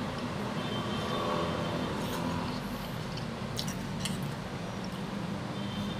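Steady low background hum, with two faint clicks a little after three and a half and about four seconds in.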